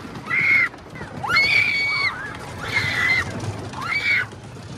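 Riders screaming on a fast-moving carnival ride: four high-pitched screams, the longest held for nearly a second in the middle.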